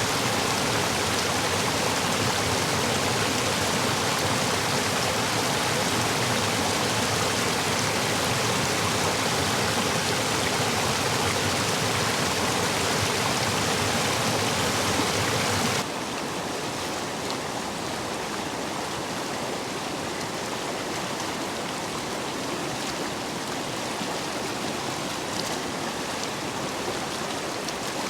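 Stream water rushing over and between stepping stones, a steady full flow swollen by recent heavy rain. A little past halfway the sound cuts abruptly to a quieter, thinner flow of water.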